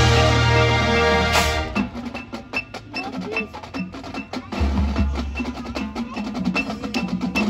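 Marching band music: the full band holds a loud sustained chord that cuts off about two seconds in. The percussion then carries on alone and quieter, with quick drum and rim-like clicks, a recurring high click, and a low held tone partway through.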